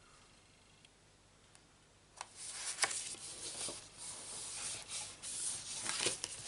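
Hands pressing and rubbing a cardstock panel flat onto a folded card base, then sliding the card across a craft mat: irregular paper rubbing and rustling with a few sharp taps, starting about two seconds in.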